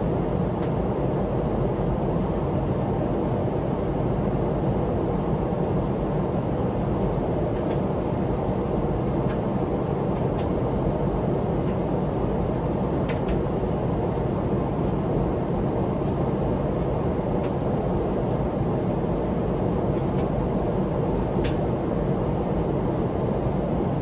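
Steady cabin noise inside a Korean Air Boeing 777-300ER in descent: an even, low rush of airflow and engine sound. A few faint clicks are heard over it.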